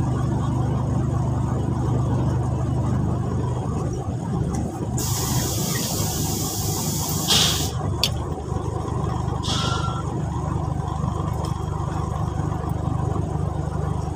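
The 10-wheeler truck's diesel engine idling steadily, heard from inside the cab. A long hiss comes about five seconds in, followed by short rustles and a click.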